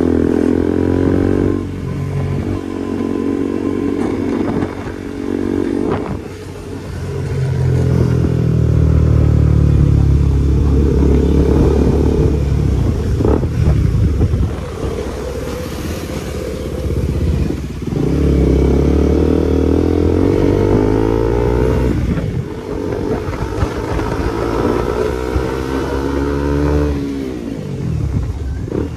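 KTM RC 200's single-cylinder engine through a modified exhaust, pulling through the gears while riding: the pitch climbs, drops at each shift and climbs again over several runs, loudest about a third of the way in. Near the end the engine note falls away as the bike slows.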